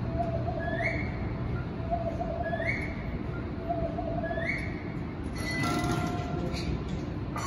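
Steady low background rumble. Over it, three times about every 1.8 s, a two-part whistled sound: a short held tone, then an upward swoop. About two seconds before the end, more held tones at several pitches join in.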